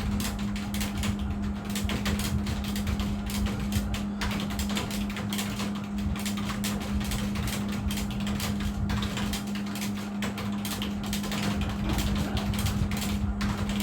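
Computer keyboard typed fast and continuously, many keystrokes a second in an irregular run, over a steady low hum.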